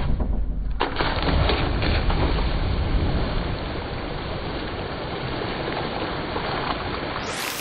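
Rushing water noise with a heavy low rumble. A sharp hit comes about a second in, and the sound eases a little after about three seconds.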